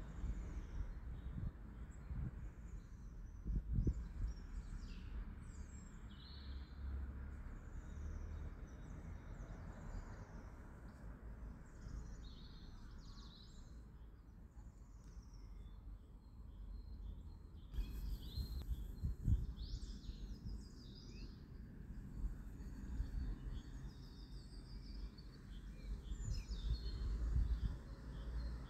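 Birds chirping and singing in the background over a low steady rumble. A few dull knocks come from the canvas and its wooden corner wedges being handled on a wooden table, the clearest about four seconds in and again about two-thirds of the way through.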